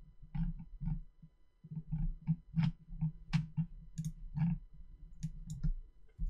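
Computer mouse clicking: a dozen or so short, irregularly spaced clicks.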